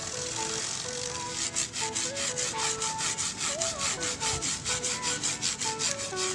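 Toothbrush bristles scrubbing a degreaser-soaked bicycle chain in quick, even back-and-forth strokes, with background music playing underneath.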